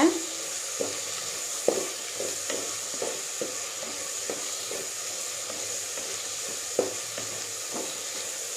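Shallots sizzling in hot oil in a clay pot as they are stirred, with irregular knocks of the spoon against the pot, the loudest about two seconds in and near the end. The onions are being sautéed until soft.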